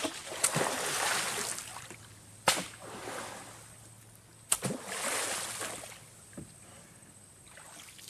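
A long wooden pole slapping down on the creek water from a small boat, each strike followed by splashing, about four times: beating the water to scare fish into a net.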